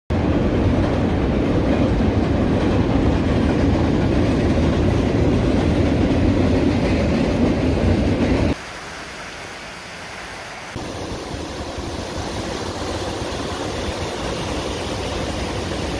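A double-stack container freight train crossing a high steel trestle bridge: a loud, steady rumble that cuts off suddenly about eight and a half seconds in. After a short quieter stretch comes the steady rush of water spilling over a low dam into rapids.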